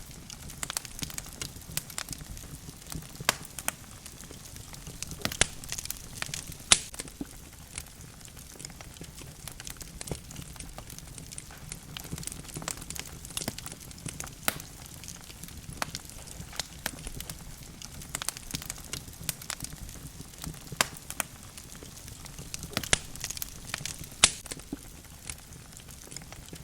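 Wood logs burning in a fireplace: a steady low rumble of flame with irregular crackles and occasional sharp, louder pops.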